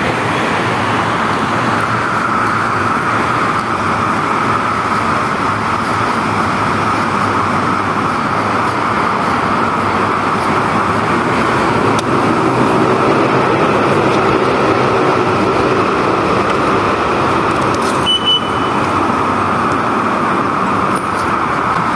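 Steady road traffic noise: cars and other vehicles passing continuously. A brief high-pitched beep sounds about eighteen seconds in.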